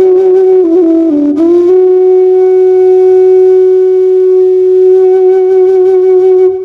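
Background music: a solo melodic instrument plays a few short notes, then holds one long note.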